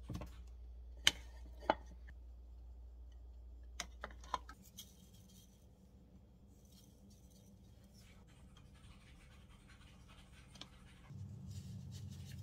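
A spoon scraping and knocking against plastic containers while gochujang and seasonings are spooned into a bowl for a sauce. A few sharp light knocks come in the first half, then softer scraping and rustling.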